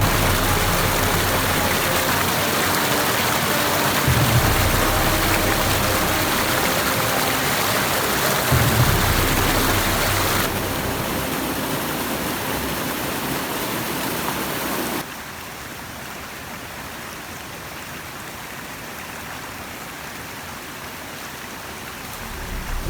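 Steady rushing of water, an even hiss that drops sharply in level about two-thirds of the way through, with two low thuds in the first half.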